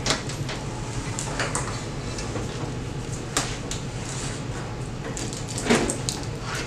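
Coffee vending machine being turned around by hand on a stainless-steel workbench: a few scattered knocks and scrapes over a steady low hum.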